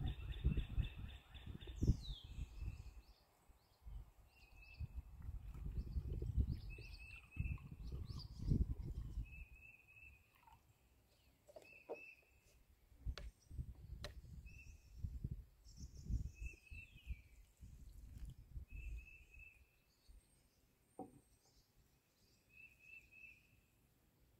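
Wind gusting on the microphone, with a bird repeating a short chirping call about every second and a couple of sharp clicks around the middle.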